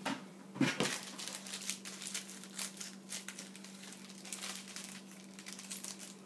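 Plastic packaging crinkling and rustling with irregular light clicks, as small Lego pieces are unwrapped and handled.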